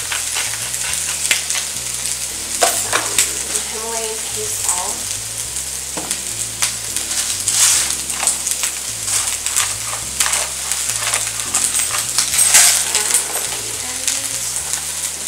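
Vegetables frying in an oiled pan: a steady sizzle with many small crackling pops.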